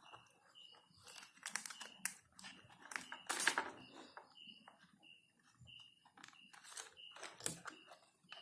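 Small plastic pocket multimeter being handled and fitted back together: an irregular run of clicks, taps and scrapes of plastic parts. A faint short high chirp repeats about twice a second in the background.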